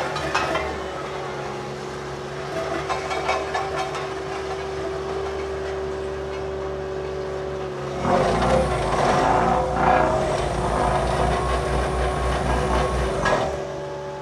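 Heavy diesel engine running steadily. Just past halfway it grows louder and rougher, with a rushing noise, for about five seconds, then drops back.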